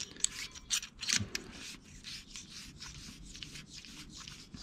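Bobcat control-valve actuator being screwed back together by hand: quiet, irregular scraping and rubbing of the tube turning in the actuator body, with small clicks.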